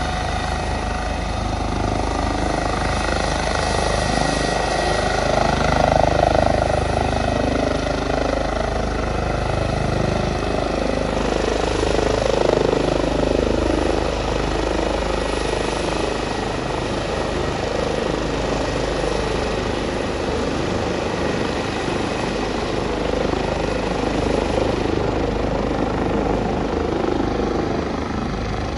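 Airbus H145 twin-engine helicopter taking off and climbing away: a steady rotor and turbine noise, with a thin high whine in the first few seconds. It is loudest about six seconds in, then slowly eases off as the helicopter gains height.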